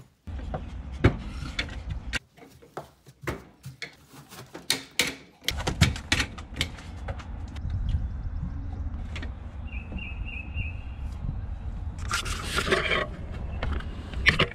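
Pet door flap knocking and clattering as a dog pushes at it and through it, with a low wind rumble on the microphone. Four short high chirps come a little past the middle, and a scraping rattle follows near the end.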